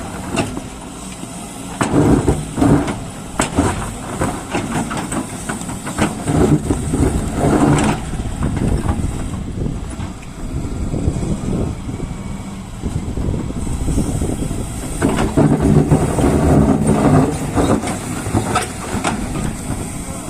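Doosan DX140 excavator working: the diesel engine runs and labours harder in several stretches as the hydraulics take load, with frequent knocks and clanks throughout.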